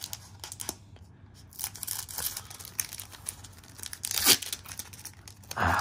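A Pokémon TCG Brilliant Stars foil booster pack wrapper being torn open, crinkling with short rips, the loudest about four seconds in.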